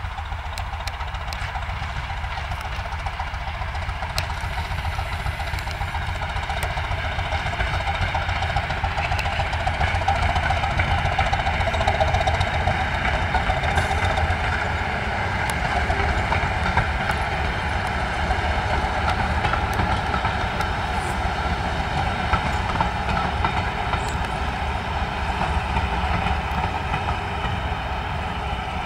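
Class 205 'Thumper' diesel-electric multiple unit passing, its English Electric four-cylinder diesel engine running with a steady low hum, along with the rumble of wheels on the rails as the coaches roll by. The sound builds over the first few seconds, is loudest about halfway through, and eases a little toward the end.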